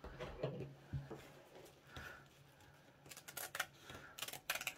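Scissors snipping into a sheet of flat millinery straw, a quick run of sharp cuts in the second half, after some quiet rustling of the straw being handled.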